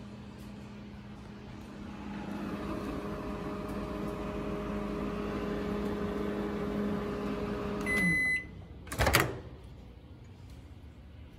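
Panasonic Genius inverter microwave oven running with a steady hum that grows louder about two seconds in. It stops at the end of its countdown with a single beep, followed a second later by a sharp click of the door being opened.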